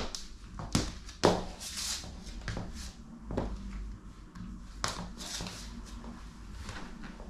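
High heels stepping on a hardwood floor: a string of irregular clicks and knocks, most of them in the first half.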